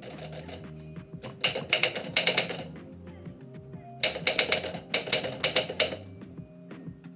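Typewriter being typed on in quick runs of key strikes, a short run about a second and a half in and a longer one from about four to six seconds in, over steady background music.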